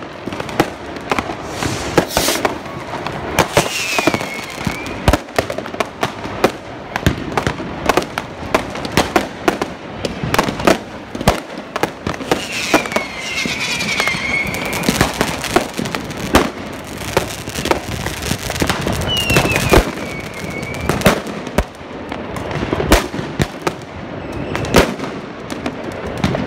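New Year's Eve fireworks and firecrackers going off in quick succession: many sharp bangs and crackles. A falling whistle from a whistling firework cuts through three times.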